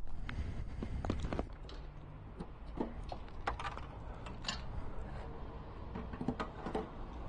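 Scattered clicks, taps and knocks from refuelling a motorcycle: the fuel cap being opened and the pump nozzle being lifted and set into the tank filler, over a low steady rumble.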